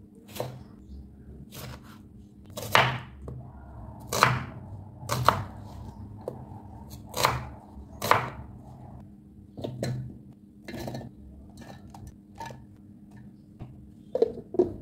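A knife slicing tomatoes and then a red onion on a wooden cutting board: irregular strokes, each ending in a knock of the blade on the wood, a little over a second apart. Near the end come two quick clacks as a plastic lid is fitted onto a steel mixer-grinder jar.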